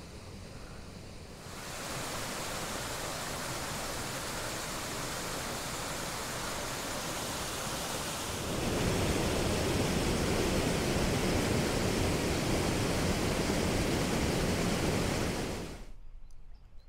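Floodwater rushing over a weir: a steady roar of water that grows louder about a second and a half in and again about halfway through, then cuts off near the end. The water is running over because the flooded river is backing up high against it.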